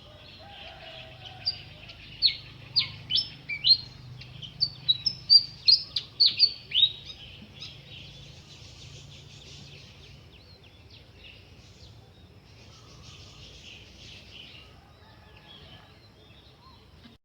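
Birds singing: a quick series of loud, sharp downward-swept notes for several seconds, then softer chirping and chatter.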